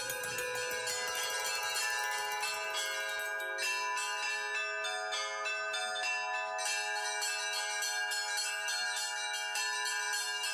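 A set of Orthodox monastery bells, large bronze bells and small bells, rung by hand with clapper ropes. Rapid, rhythmic strikes go on at several pitches at once, each ringing on under the next.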